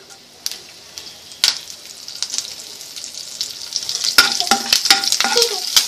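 Fresh curry leaves sizzling and spluttering in hot oil with crackled mustard seeds, as a tadka. It starts as a hiss with scattered pops, and about four seconds in turns into dense, louder crackling as they are stirred.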